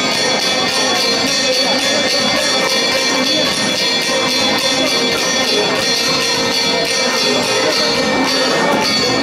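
Lively music with a steady, fast beat and jingling percussion, playing continuously.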